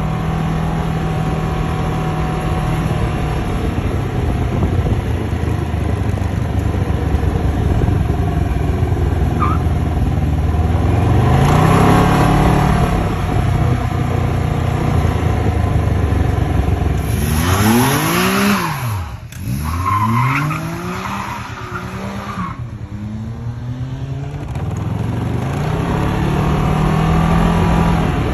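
Can-Am Spyder F engine running and being revved, its pitch climbing and falling again several times. About two-thirds in there is a louder, hissier stretch of quick up-and-down pitch swings.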